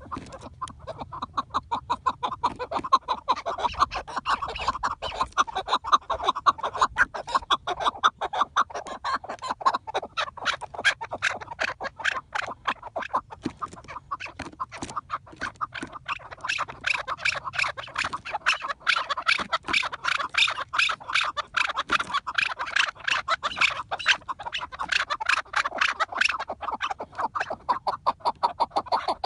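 Chukar partridges calling: a fast, unbroken run of short clucking 'chuk' notes, several a second.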